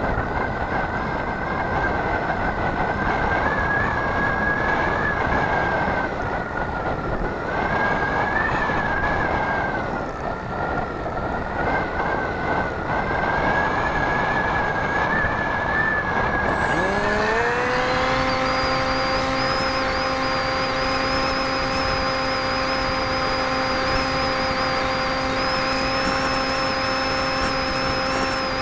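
Airflow rushing over an RC model plane's onboard camera, with a wavering whistle. About seventeen seconds in, the model's motor spins up in a quick rising whine and then runs at a steady pitch.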